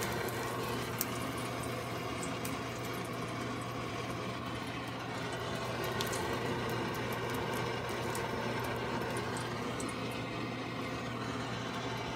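Sausages sizzling in hot oil in a nonstick frying pan: a steady hiss with many scattered small pops, over a constant low hum.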